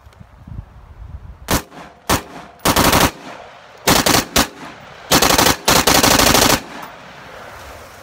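AR-15 rifle with a Fostech Echo binary trigger firing: two single shots, then three rapid strings of shots, the last about a second and a half long, as the trigger fires once on the pull and again on the release.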